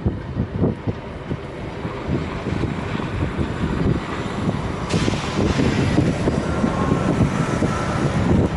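Snowstorm wind gusting against the microphone, with a steady hiss coming in about halfway through.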